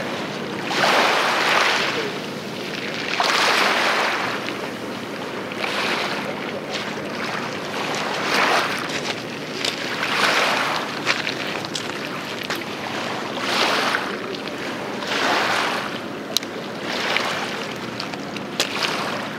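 Tractor tug's engines running with a steady low drone while it pushes against a ship's hull, under repeated surges of churning, splashing water every couple of seconds. There are a couple of sharp clicks near the end.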